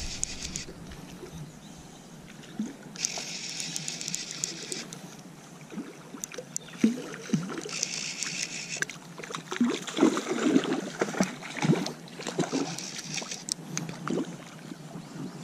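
A fly reel being wound in several short spells, mixed with water splashing and sloshing as a hooked trout fights at the surface; the splashing is busiest in the second half.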